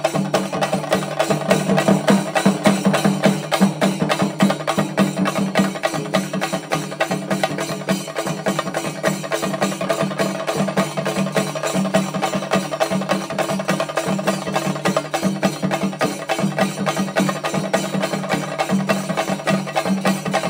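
Percussion ensemble playing a fast, dense rhythm of drum strokes over a steady held tone, without pause.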